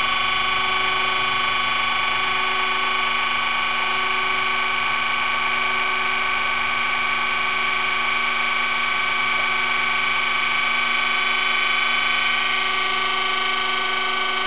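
Surface grinder's wheel running with a steady whine of several stacked tones, grinding the outside of a hardened steel drill bushing. The bushing is spun on a tapered mandrel by belt-driven ATCO electric centers.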